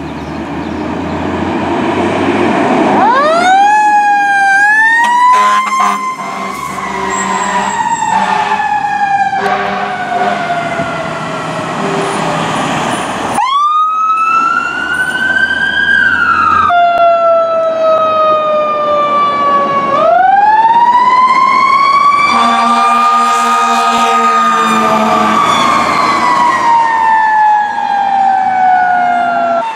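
Fire truck siren wailing: it winds up fast, then slowly winds down, three times over, with one wail cut off short. Several steady-pitched horn blasts sound among the wails.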